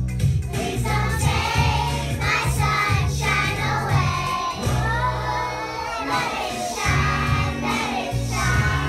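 A group of young children singing a song together over musical accompaniment with a steady bass line.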